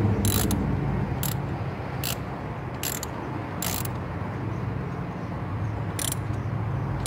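Ratchet wrench clicking as it is worked on a bolt in the engine bay, in short clicks at uneven intervals: about six over the first four seconds and one more about six seconds in, over a low steady hum.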